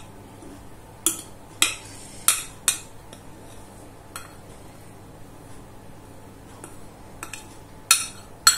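Metal utensil clinking against glass while flour is scooped from a glass jar: about four sharp clinks in the first three seconds, a few fainter taps in the middle, and two loud clinks near the end.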